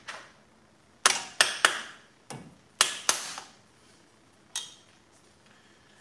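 Metal brake parts and tools clanking as brakes are refitted over a truck's front rotor and hub: seven sharp knocks, each with a short ring. Six fall between about one and three seconds in, and one comes near the five-second mark.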